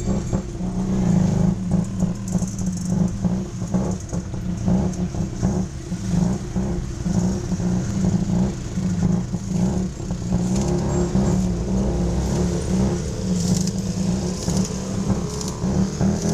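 Tuk tuk engine running with a dense, pulsing chug as the three-wheeler drives along, with hiss from the road, and the pitch rising near the end as it picks up speed.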